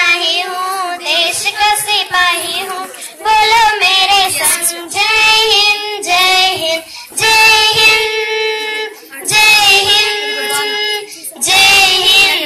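A girl singing into a microphone, unaccompanied, in phrases with long held, wavering notes and short breaks between them.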